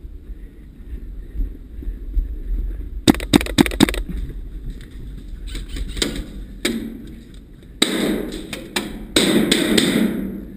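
An airsoft rifle firing a quick string of about six shots, about three seconds in, followed by a few scattered single cracks. Loud bursts of rustling noise come near the end.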